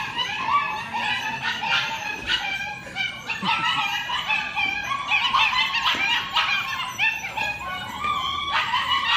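A litter of six- and seven-week-old German Shepherd puppies yipping and barking all at once, with many short high-pitched calls overlapping without a break.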